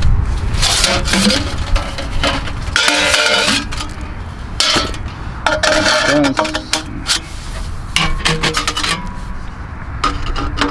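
Metal camping gear clanking and clinking as it is handled and set up: an irregular run of knocks and clinks, several leaving a short ringing tone.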